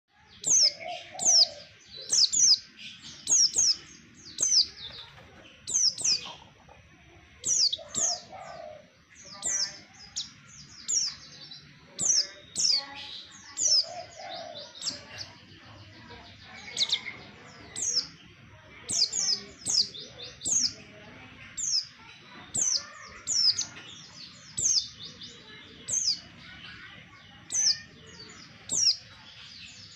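White-eye (pleci) lure call: rapid, high, thin chirps, each a quick falling note, coming in twos and threes about once a second.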